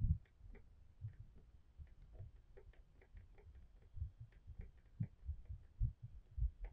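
Faint irregular ticking of a fishing reel being cranked as a lure is reeled in, over dull low thumps.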